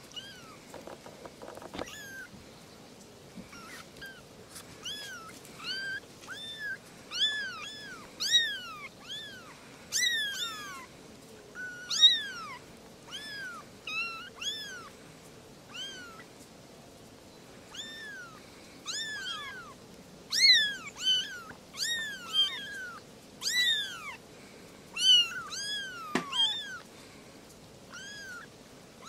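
Newborn kittens mewing over and over: short, high-pitched cries that rise and fall in pitch, coming thick and fast through the middle and thinning out near the end.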